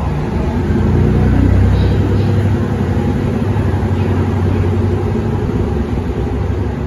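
JR Shikoku 2700 series diesel multiple unit's engines pulling the train away from the platform, a loud deep drone. It is strongest a second or two in and then holds steady as the train moves off.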